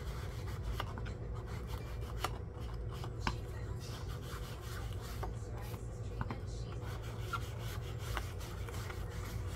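Paper being rubbed and scuffed at the edges during hand distressing, giving an uneven scratchy rasp with scattered light ticks, over a steady low hum.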